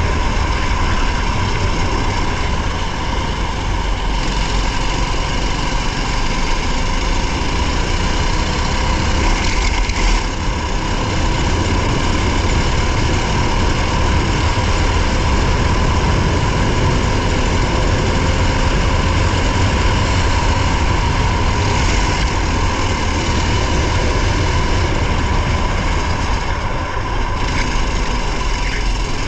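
Racing car's engine running steadily, heard from inside the cabin with heavy road and wind noise.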